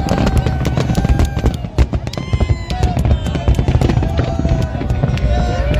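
Fireworks display: rapid bangs and crackling over a continuous deep rumble, with music playing along.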